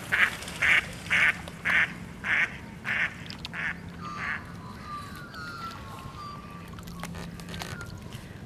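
A duck quacking in a run of about nine quacks, roughly two a second, growing weaker toward the end, followed by faint thin whistle-like calls.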